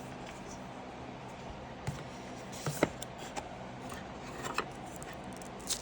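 A few light clicks and rustles of the doorbell kit's plastic parts and packaging being handled, over a steady low hum.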